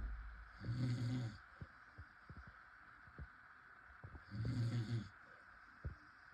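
A person snoring: two long, low snores about three and a half seconds apart, over a steady faint background hiss, with a brief low rumble at the very start.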